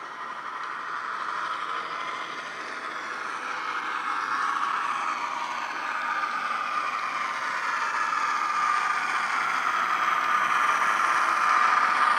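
Model Australian P Class diesel locomotive's DCC sound decoder playing diesel engine running sound through a small bass-enhanced speaker, with a slowly shifting pitch. It grows steadily louder as the loco approaches, with the rattle of the wagons running on the track.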